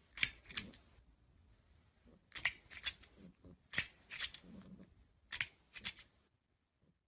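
Sharp clicks or snips in pairs and small clusters, a group every second or so.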